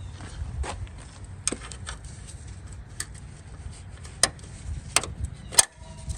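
Scattered sharp clicks and light metal taps of small fender U-nut clips being handled, about seven in all, over a steady low hum.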